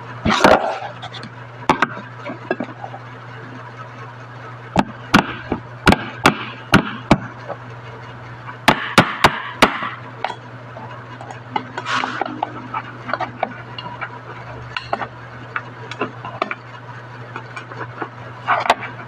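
An animal calls in short bursts: once at the start, once about twelve seconds in, and twice near the end. Between them come two runs of sharp clicks or taps, over a steady low hum.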